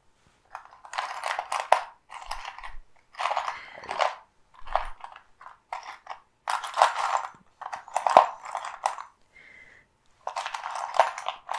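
Crinkly packaging handled and rustled close to the microphone, in crackling bursts of about a second with short pauses between.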